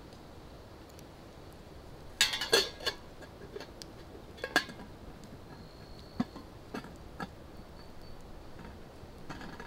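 A metal camp pot clinking and knocking as it is handled: a quick cluster of clinks about two seconds in, the loudest part, then single knocks every second or so.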